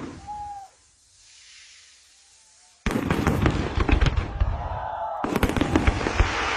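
Fireworks going off: a single bang, a short lull, then from about three seconds in a dense, rapid run of bangs and crackling from aerial shells bursting.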